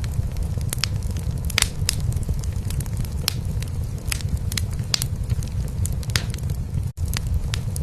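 A cat purring steadily under a crackling wood fire in a fireplace, with sharp pops scattered irregularly over it. The sound drops out for an instant about seven seconds in.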